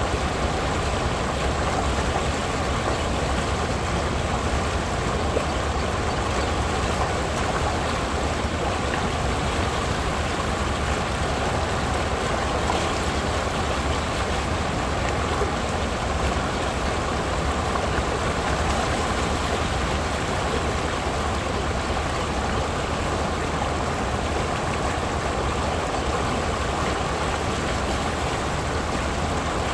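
Creek water sheeting over a flat rock ledge and pouring into a small white-water chute: a steady rushing, splashing flow that holds an even level throughout.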